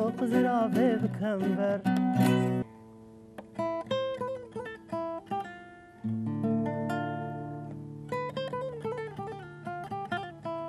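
A sung song with accompaniment cuts off suddenly about two and a half seconds in. Acoustic guitar takes over, plucking single notes one at a time, and low held notes join under the guitar at about six seconds.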